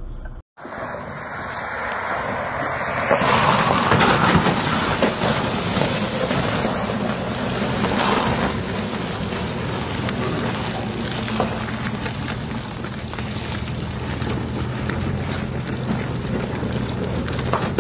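Dodge pickup truck's engine running with a steady low hum under a loud, even rushing noise, which starts after a brief break about half a second in and is loudest around four seconds in.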